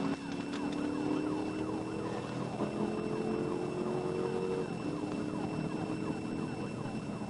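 Police car siren cycling fast through repeated pitch sweeps, heard from inside the patrol car, under the engine accelerating hard. The engine note climbs steadily and drops back once, about two-thirds of the way through, as the transmission upshifts.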